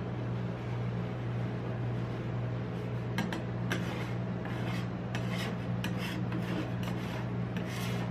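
A metal spatula scraping leftover ice cream across the frozen metal plate of a rolled-ice-cream machine: a few sharp scrapes about three seconds in, then repeated scraping strokes from about five seconds on, over a steady low hum.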